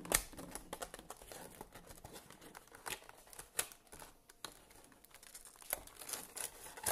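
Small cardboard box being opened by hand: scattered taps, rustles and crinkles as the flaps and sides are handled, with the sharpest tap just at the start.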